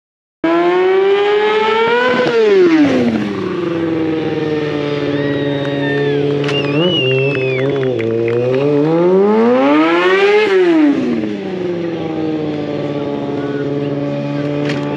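Stunt motorcycle engine revving hard twice, climbing to a peak about two seconds in and again around ten seconds before dropping back, running steadily in between, with some brief high squeals in the middle.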